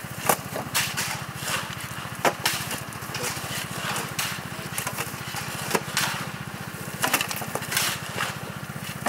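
Small engine of a motorised mini dumper (power barrow) running steadily at idle, while shovels scrape and crunch into gravel about once a second.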